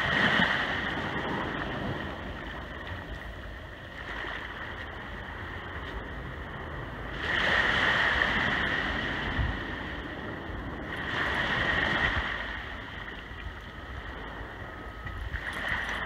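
Small ocean waves breaking and washing up the sand and swirling around rocks, a steady hiss of surf that swells three times: at the start, around halfway, and again a few seconds later.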